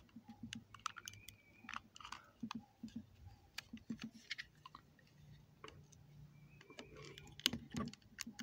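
Knife blade and small screwdriver prying at the seams of a Harbor Freight battery tester's plastic case: faint, irregular clicks and scrapes of metal on plastic, with a few louder clicks near the end.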